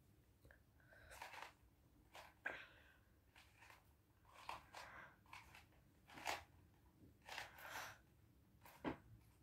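Faint rustling and crinkling of small objects being handled, with a few sharp clicks.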